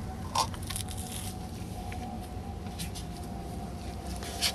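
A few short metallic clicks of a ring spanner being fitted onto a car's gearbox mounting bolt, one shortly after the start and a sharper one near the end, over a low steady hum.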